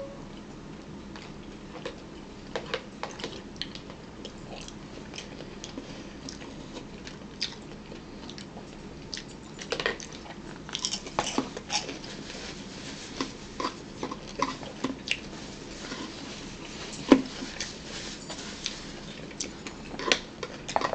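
Close-up eating sounds: chewing and biting, with scattered short clicks and taps of a spoon and bowl. The clicks grow more frequent in the second half.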